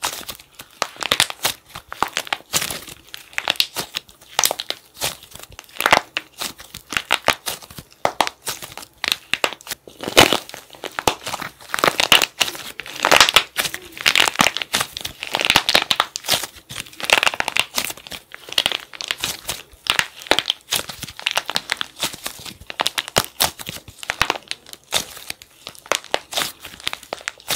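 Hardened plaster clay crunching and crackling as hands squeeze and break it up inside soft clay: a dense, irregular run of small sharp cracks.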